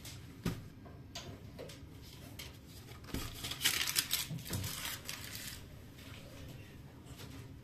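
Kitchenware being handled: a sharp knock about half a second in and another around three seconds, then a couple of seconds of clattering and rustling.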